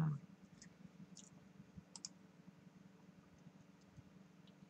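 Quiet room with a steady low hum and a few faint, sharp clicks, about a second and two seconds in.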